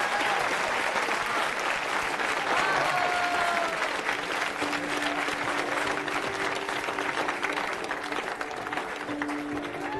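Crowd applauding and cheering, with a few shouted cheers about two and a half seconds in, over soft backing music whose held notes come through more in the second half.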